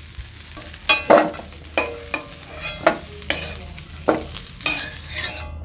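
Metal spatula scraping and clinking against a metal kadai as fried cauliflower florets are scooped out of hot mustard oil. There are about nine irregular scrapes, some ringing briefly, over a light sizzle.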